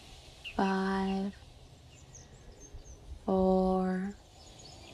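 A low, steady tone rich in overtones sounds twice, each time for under a second, about two and a half seconds apart, starting and stopping sharply. Faint bird chirps are heard between the tones.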